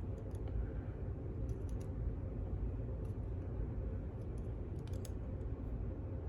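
Scattered faint metal clicks of small tools working at a snap ring on a lock cylinder, over a steady low hum.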